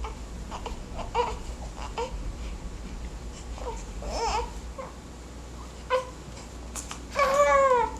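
A baby babbling and fussing in short high-pitched squeals, then a louder whiny cry that falls in pitch about seven seconds in.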